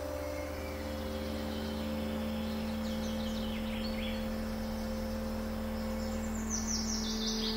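Fantasy ambience track: a low rumbling bed under several held, steady drone tones, with bird chirps on top, including a falling run of chirps near the end.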